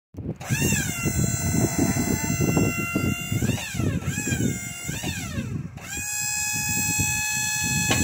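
Wood-Mizer sawmill's hydraulics working the log turner to roll a squared cant: a high whine over the running engine, its pitch dipping and recovering about three times near the middle as the hydraulics take load.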